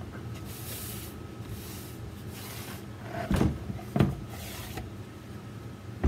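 Silicone soap-mold liner being worked out of its wooden mold box by hand: several short rubbing, scraping stretches, then two knocks about three and four seconds in as the mold meets the steel table.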